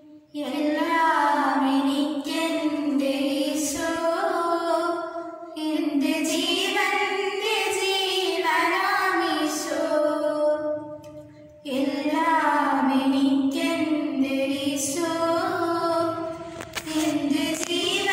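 Two girls singing together without accompaniment, in long held phrases with a brief pause for breath about every five to six seconds.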